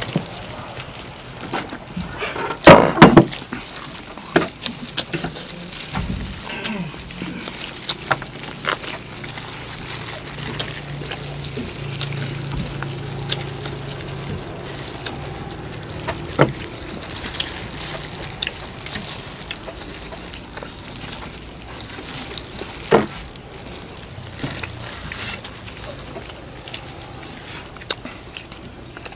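People eating roast duck: chewing and tearing the meat, with scattered clicks and knocks of bones and utensils. The loudest knocks come about three seconds in.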